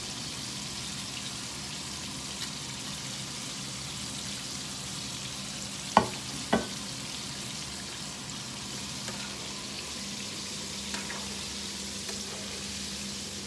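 Chicken frying in a pan of hot oil, a steady sizzle, with two sharp clicks about halfway through.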